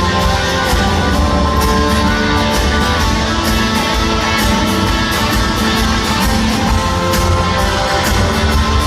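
Live rock band playing an instrumental passage: strummed and electric guitars over bass and steady drums, with no vocals.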